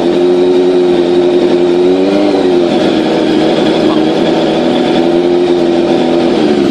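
Honda CBR650F inline-four engine idling through an AR-style slip-on exhaust, a steady note whose pitch lifts slightly about two seconds in and again near the end.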